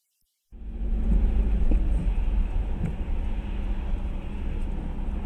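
Car driving noise picked up inside the cabin by a dashcam: a steady low engine and road rumble. It cuts in suddenly about half a second in.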